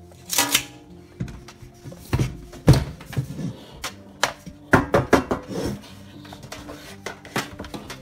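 A steel tape measure retracting with a short rattle about half a second in, then scattered knocks and clicks as a metal ash-vacuum canister and its plastic lid are handled. Soft background music plays underneath.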